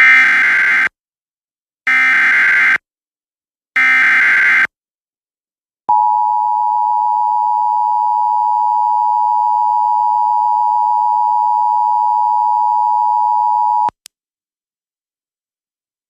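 Emergency Alert System tones: three one-second bursts of SAME digital header data about two seconds apart, then the steady two-tone attention signal held for about eight seconds, which cuts off suddenly. This sequence marks the start of a new alert, here a Special Marine Warning.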